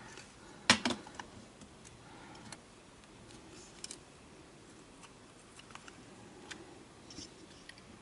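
Scattered small plastic clicks and taps from handling the opened case and circuit board of a Sony TCD-D3 DAT Walkman, with one sharper click a little under a second in, the loudest.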